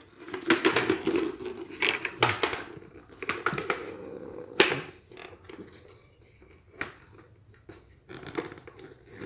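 Clear plastic visor of a KYT full-face helmet being fitted onto its side pivot mechanism: a run of plastic clicks and scrapes, with a sharper click about four and a half seconds in and another near seven seconds.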